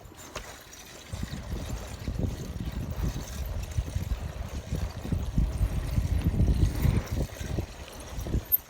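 Wind buffeting the microphone on a bike ride: an uneven, gusting low rumble.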